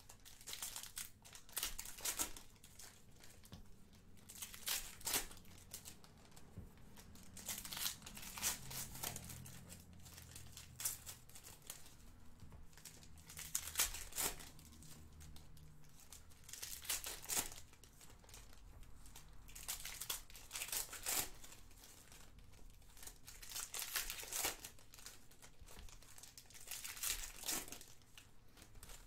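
2018-19 Panini Contenders basketball card packs being torn open and crumpled by hand, their shiny wrappers crinkling in irregular sharp crackles every second or two.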